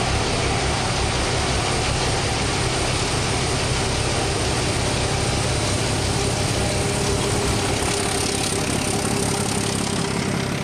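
ČKD class 751 diesel-electric locomotive passing at speed while hauling a freight train of hopper wagons, its turbocharged K6S310DR diesel engine running with a steady, loud drone over the noise of the train rolling on the track.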